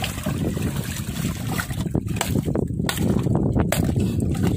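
Sea water sloshing and splashing at the side of a small boat where a large tuna is held on a gaff, over a steady low rumble of wind on the microphone. A few sharp knocks or splashes come in the second half.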